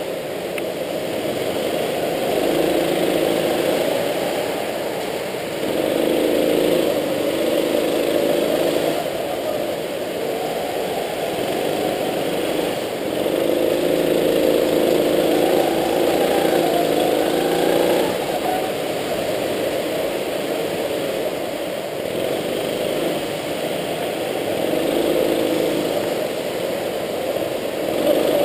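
Go-kart's small engine running under throttle, heard from onboard the kart, its revs rising and falling repeatedly through the lap.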